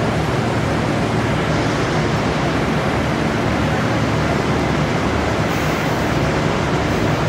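Steady, even engine noise of diesel rail vehicles idling at a platform, with a low hum underneath.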